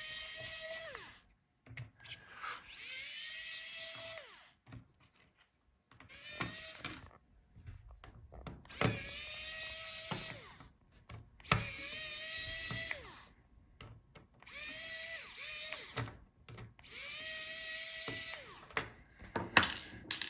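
Small electric screwdriver backing out the laptop's hinge screws in short runs, about seven of them. Each whir rises in pitch as the motor spins up, holds, then winds down, with short pauses between screws.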